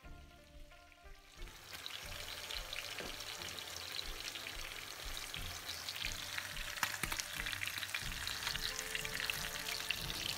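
Whole koi fish (climbing perch) frying in hot oil in a pan: a steady sizzle with fine crackles that sets in about a second and a half in.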